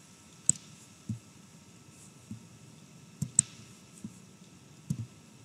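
Computer mouse clicks and small taps as a block is dragged and dropped on screen: a handful of faint, short clicks at irregular intervals.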